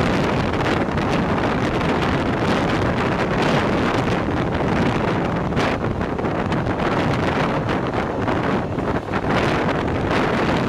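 Wind buffeting the microphone over the steady running noise of a moving train.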